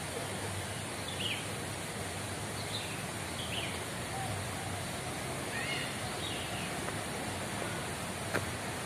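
Outdoor park ambience: a steady hiss with several short bird chirps scattered through, and one sharp click near the end.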